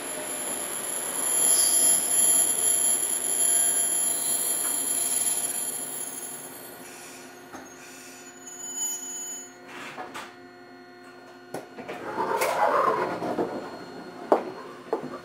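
Eizan Electric Railway Deo 700 series electric railcar running, heard from inside the car, with a high-pitched squeal over the running noise. The noise dies down about halfway through to steady hums with scattered clicks, and a short rushing swell comes near the end, followed by a sharp click.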